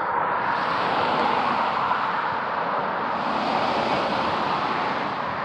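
A road vehicle passing, its tyre and road noise swelling up, holding for several seconds and then fading away.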